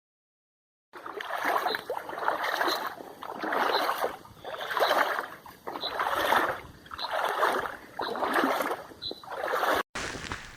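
Footsteps walking slowly on a loose, crunchy or splashy surface, one long scuffing step about every second, starting about a second in. Near the end it cuts off abruptly and a different, denser run of footsteps begins.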